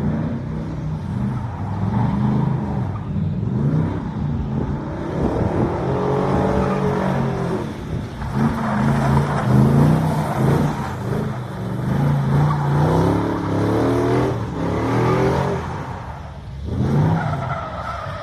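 Truck engine revving hard while drifting, its pitch rising and falling in repeated surges, with a brief lull near the end followed by one more rev.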